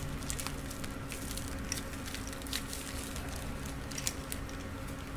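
Bearings in their packet being handled: faint scattered clicks and plastic rustling, over a steady low hum.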